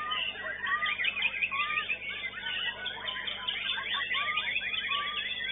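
White-rumped shamas (murai batu) singing in a song contest: a dense, unbroken stream of overlapping chirps and gliding whistles, with one clear slurred whistle repeated about once a second.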